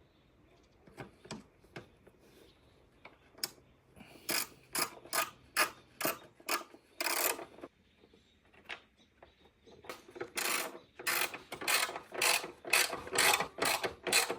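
Hand tool tightening the band clamps on a car's air intake, clicking in repeated short strokes about three a second. The strokes pause for a couple of seconds past the middle, then come faster and louder.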